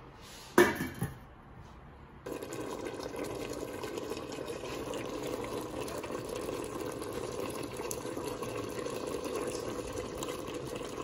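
A sharp knock about half a second in. Then, from about two seconds in, a steady bubbling hiss of lamb curry simmering in a stainless steel pot.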